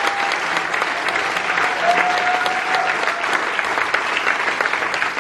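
Audience applauding steadily, a hall full of hands clapping.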